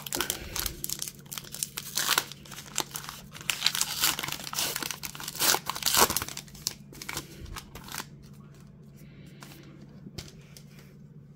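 Foil wrapper of a Topps baseball card pack being torn open and crinkled while the cards are pulled out: dense crackling that dies down about eight seconds in.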